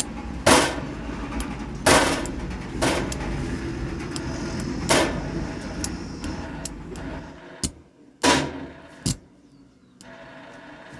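A speaker crackling and popping with sharp, irregular cracks over a low rumbling noise as the volume of a Stager amplifier is turned up. This is the scratchy sound of a worn volume potentiometer.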